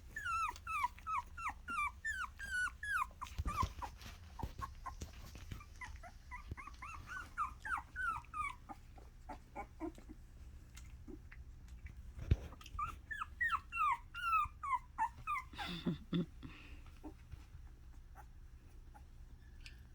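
Mini Australian Shepherd puppy whining: three runs of short, high squeals in quick succession, each sliding down in pitch. A single knock comes about twelve seconds in, and a lower, brief sound follows the last run.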